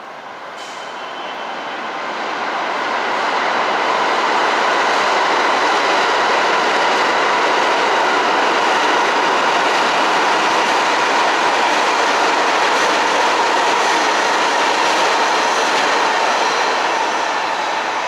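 A New York City subway train running through the station below, its rumble of wheels on rail swelling over the first few seconds, holding steady with a few high whining tones in it, and easing off near the end.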